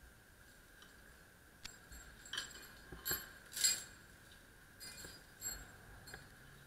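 Heavy steel chain links clinking against each other and the pipe as gloved hands handle them: an irregular run of sharp metallic clinks, the loudest a little past the three-second mark.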